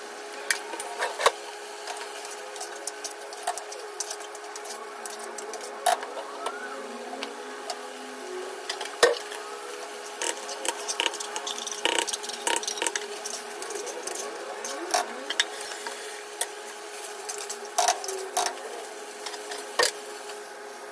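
Kitchen handling sounds: repeated short clicks and knocks of utensils, pans and plastic food containers being picked up and set down at a stovetop, over a steady hum.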